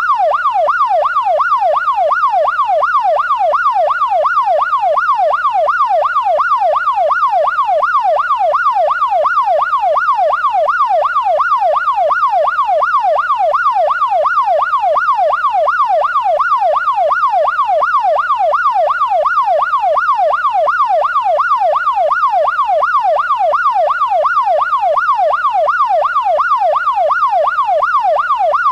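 Police car siren in a fast yelp, its pitch rising and falling quickly over and over without a break.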